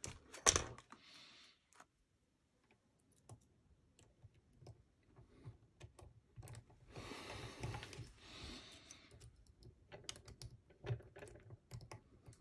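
Small, scattered metallic clicks and taps as a key and the loose parts of a drilled-out euro lock cylinder are worked by hand, with one sharp click about half a second in. A stretch of rustling handling noise comes about halfway through.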